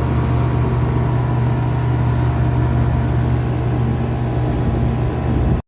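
25-ton Trane Voyager rooftop air-conditioning unit running with both compressors on: a steady low hum with a mechanical drone over it, cutting off suddenly near the end.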